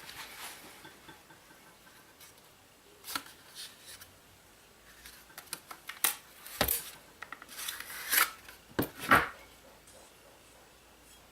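Scattered scrapes, clicks and knocks of a metal blade being handled and worked, with a loud cluster of strikes and scrapes about six to nine seconds in, two of them landing as dull thuds.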